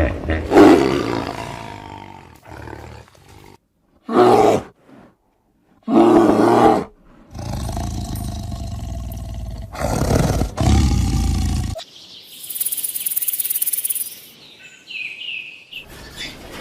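Big cats roaring and growling: a string of separate loud calls, each lasting about half a second to two seconds. Near the end comes a high hiss of about two seconds.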